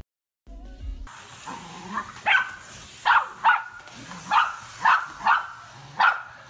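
Corgis barking sharply at a running vacuum cleaner, about seven barks in quick succession, over the cleaner's steady hiss.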